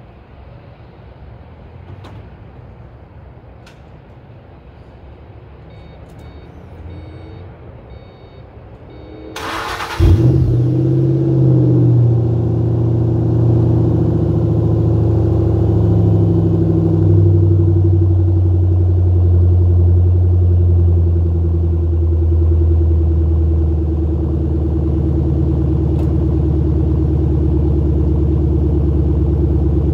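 Cold start of a 2005 Ford Mustang GT's 4.6-litre V8 through a Steeda exhaust. About nine seconds in the starter cranks briefly, the engine catches with a quick rev flare, and then it runs at a steady, loud fast idle that drops a little in pitch as it settles.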